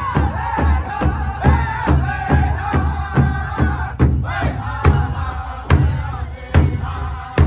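Powwow drum group singing a high-pitched song in unison while striking a large shared drum together with drumsticks, a steady beat of about two strikes a second. In the second half some strikes land noticeably harder, about once a second.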